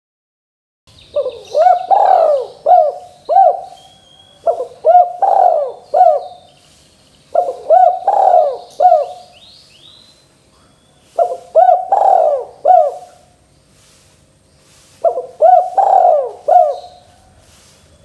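Spotted dove cooing: five phrases of several coos each, repeated every three to four seconds, starting about a second in.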